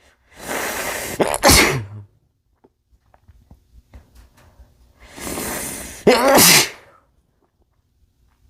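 A man sneezing twice into a bandana, each sneeze preceded by a long, noisy in-breath. The first sneeze comes about a second and a half in and the second about six seconds in, with faint sniffs and rustles between them.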